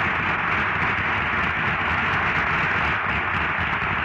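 Studio audience applauding steadily for the returning guest star, a dense, even clatter of clapping on an old radio broadcast recording.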